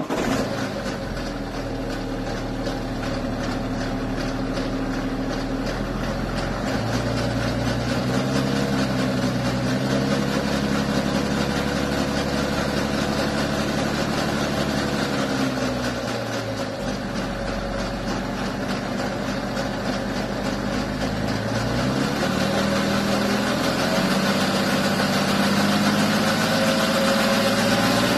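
BMW N57 3.0-litre straight-six diesel idling just after starting, with a heavy metallic rattle over the engine note: a badly stretched timing chain at 105,000 miles. The idle speed steps up and drops back about twice.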